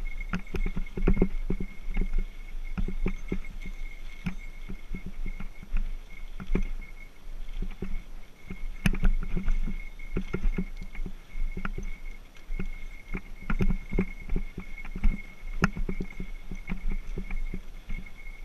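Mountain bike rolling over a bumpy grass-and-dirt singletrack: frequent irregular knocks and rattles over a steady low rumble, with a faint steady high tone throughout.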